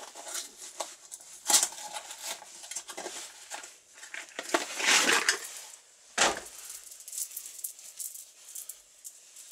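A saw chain's cardboard package being opened and the metal chain handled, giving irregular rustling and small rattles and clinks. A sharp knock comes just after six seconds in.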